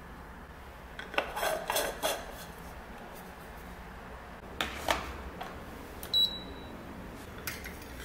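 Plastic parts of a portable capsule/ground-coffee espresso maker handled and screwed together: a cluster of clicks and rubbing scrapes about a second in, two sharper clicks near the middle, and the loudest event, a short click with a brief high ring, a couple of seconds later.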